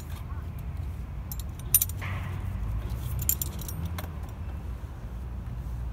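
Metal clip and hardware on a wheelchair-lift strap jingling and clicking against the wheelchair frame as the strap is fastened to the chair, with a sharp click about two seconds in. A steady low hum runs underneath.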